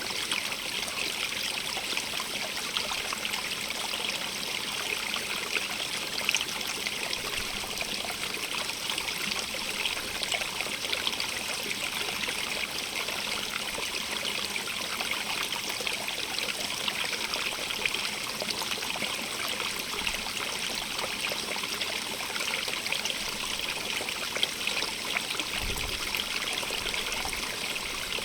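Running water, flowing and trickling steadily with a constant splashing hiss.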